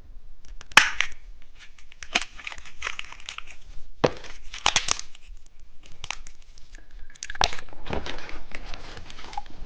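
Candy wrapper being torn open and crinkled: a run of sharp crackles and rustles.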